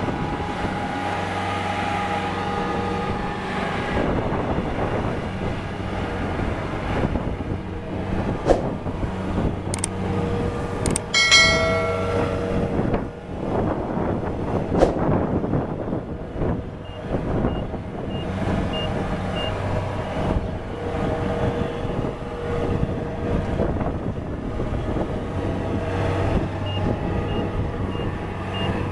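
Kubota DC-70 Plus combine harvester's diesel engine running steadily. A few knocks and clanks come in the middle, with a brief high ringing tone about eleven seconds in. Faint, evenly spaced beeps come twice later on.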